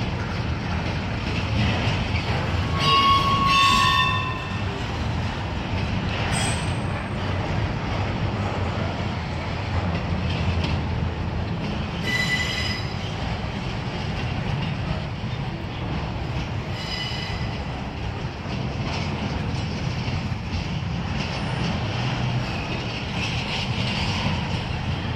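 Double-stack intermodal well cars of a Norfolk Southern freight rolling past with a steady low rumble of steel wheels on rail. Brief high-pitched wheel squeals cut through about three seconds in (the loudest moment), again around twelve seconds in and once more near seventeen seconds.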